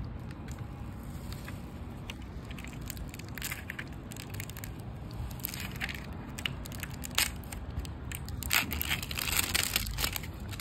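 Packaging being torn and crinkled off a new spool of Mono Gold kite string, in scattered crackling rustles and small clicks that come in bunches.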